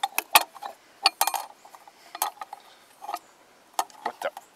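Irregular metal clicks and clinks, about a dozen sharp taps, from a 12-inch Beaver Blade saw-chain disc being turned and pressed by hand onto a DR walk-behind string trimmer's spindle, which it is not seating fully down on.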